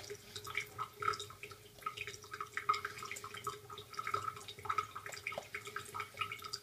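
Synthetic shaving brush working soap lather on the face, giving many small, irregular wet crackles and squelches as water is worked into a dense lather. A faint steady hum runs underneath, likely from a tap left trickling.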